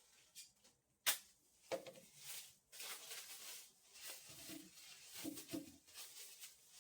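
A sharp click about a second in, then irregular rustling and soft knocks of things being handled.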